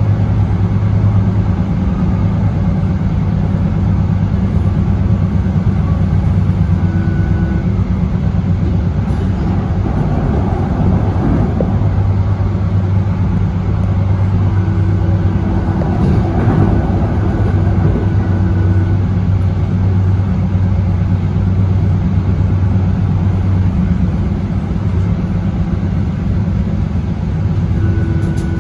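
DART light rail train running, a steady low hum and rumble heard on board. A faint steady whine comes and goes a few times over it.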